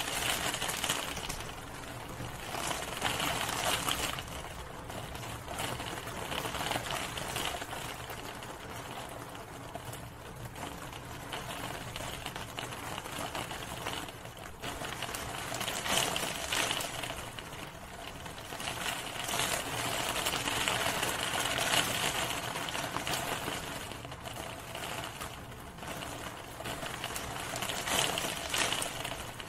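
Rain falling steadily, its hiss swelling and easing every few seconds.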